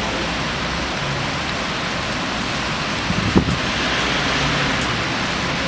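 Steady hiss of rain and wet-road traffic, with a bus engine running low underneath. A single short knock about three and a half seconds in.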